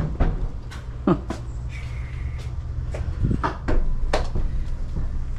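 A door being handled and opened: a series of sharp clicks and knocks, with a brief steady squeak about two seconds in, over a steady low rumble.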